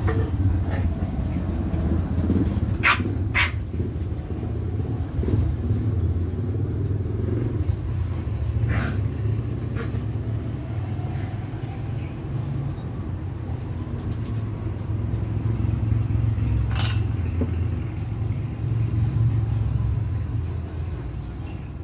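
Steady low rumble, with a few short sharp clicks: a pair about three seconds in, one near nine seconds and one near seventeen seconds.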